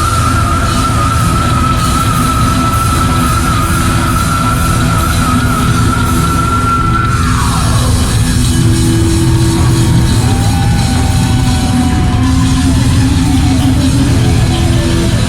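Heavy metal band playing live, loud and distorted. A long high note is held, then dives steeply down in pitch about halfway through.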